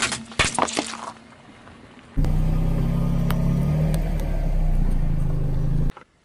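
Mesh stress balls filled with gel beads crushed under a car tyre, squelching and crackling for about the first second. About two seconds in, a car engine starts running steadily with a low hum, then cuts off abruptly near the end.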